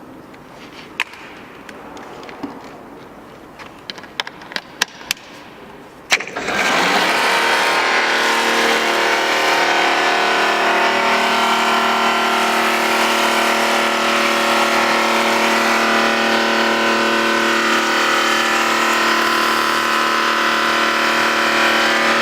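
A few light clicks, then about six seconds in the mobile steam washing machine's pressure pump starts suddenly and runs steadily, with a hissing spray from the cold-water gun.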